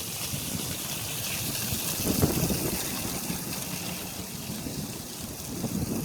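Steady hiss of wind, with a short gust buffeting the microphone about two seconds in.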